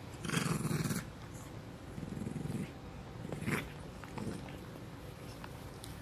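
A Chihuahua mix growling in play as it bites and wrestles a gloved hand. The growl is a low rumble that comes in several short spells.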